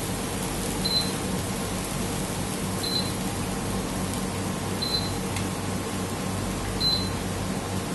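Steady machine hum and hiss in a kitchen, with a short high beep repeating about every two seconds.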